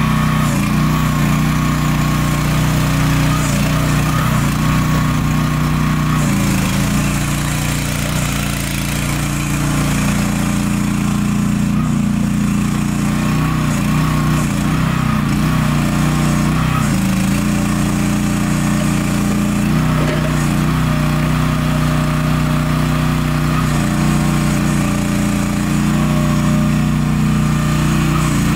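Small engine of a new MIVA VA13 mini excavator running steadily while the boom, arm and bucket are worked, its pitch wavering and dipping for stretches in the middle.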